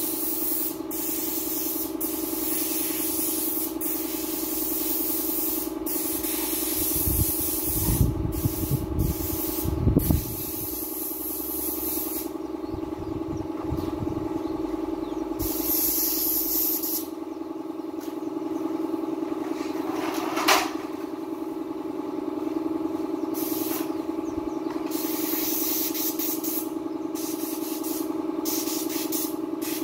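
Compressed-air paint spray gun hissing in repeated bursts as the trigger is pulled and released, over a steady motor hum. A few low knocks come about eight to ten seconds in.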